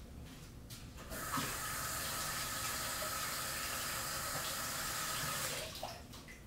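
Water running steadily, a hiss that starts abruptly about a second in and stops shortly before the end.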